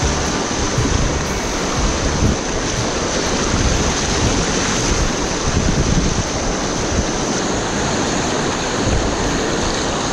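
Whitewater rapids rushing and splashing right around a kayak: a loud, steady wash of moving water with a rumbling low end.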